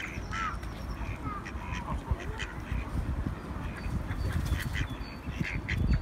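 Mallard ducks quacking: a string of short quacks at irregular intervals from several birds close by.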